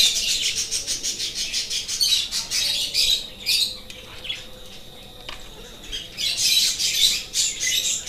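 Budgerigars chirping and chattering in high, scratchy calls, quieter for a stretch in the middle.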